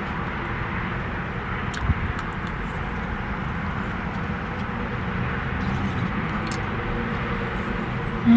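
Steady low rumble and hiss of a car's interior, even in level throughout, with a single soft knock about two seconds in and a few faint ticks.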